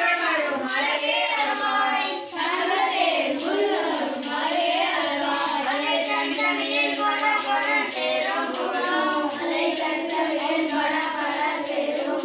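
Group of boys singing a Tamil devotional bhajan together, with a steady rhythmic beat beneath.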